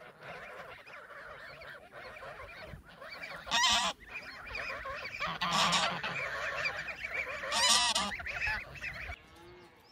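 A flock of domestic geese honking, many calls overlapping, with three louder bursts of calls about three and a half, five and a half and nearly eight seconds in; the honking stops shortly before the end.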